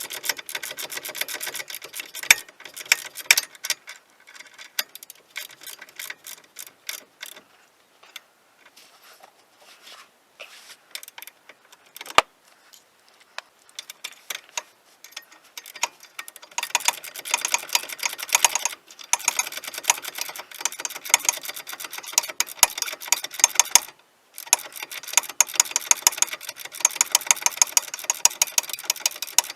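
Hand socket ratchet clicking rapidly in runs as a bolt is turned: dense clicking at the start and again for the second half, sparse single clicks in between and a brief stop about three-quarters through.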